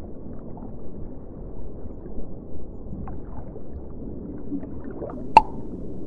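Low underwater gurgling and bubbling, with small scattered pops and one sharp bubble pop about five seconds in.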